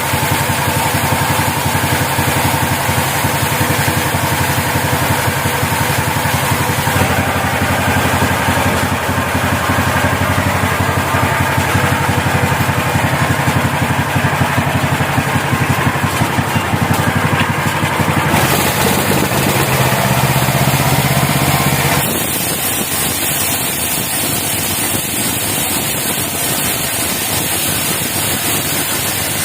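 Engine of a portable band sawmill running steadily. Its note shifts about a quarter of the way in and changes abruptly near the end.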